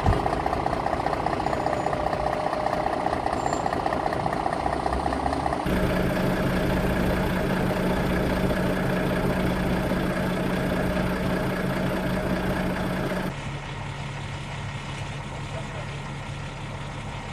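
A steady running engine, heard in three abruptly cut stretches: the second, about six seconds in, is the loudest, and the third, about thirteen seconds in, is quieter.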